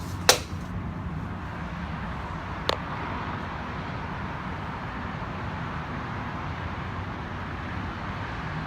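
Steady outdoor background noise of distant traffic, with a sharp click about a third of a second in and a fainter click near three seconds.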